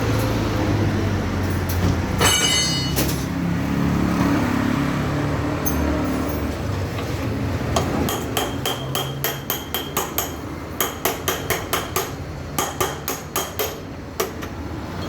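A hammer striking metal repeatedly, in rapid blows about three a second through the second half, each with a short metallic ring. There is one ringing metal clang about two seconds in.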